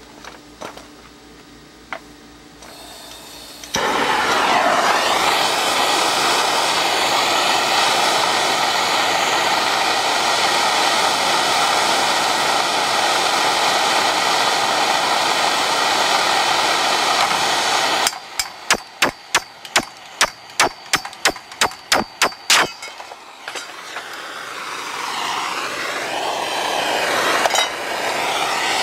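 Propane soldering torch hissing steadily, lit with a sudden start about four seconds in. It stops for a few seconds, broken by a quick run of about a dozen sharp clicks, then its hiss comes back and grows louder near the end.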